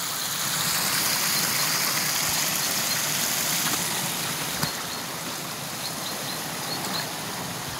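Shallow river water rushing over stones and a small rapid, a steady rush that eases a little about halfway through.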